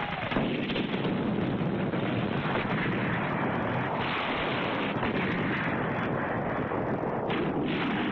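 Battle noise: a dense, steady rumble of gunfire and explosions.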